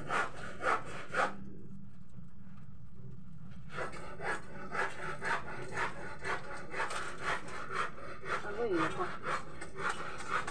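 A comb drawn again and again through short hair close to the microphone, making rasping strokes about two a second. The strokes pause for about two seconds near the start, then resume steadily.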